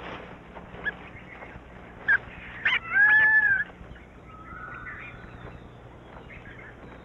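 Animal calls: a few short sharp cries, then about three seconds in one loud pitched call that arches up and down for over half a second, and later a fainter, flat-pitched call.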